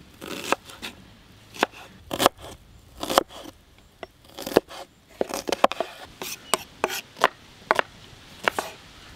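Kitchen knife chopping red onions on a wooden cutting board: about fifteen uneven, sharp knocks of the blade hitting the board, some in quick runs.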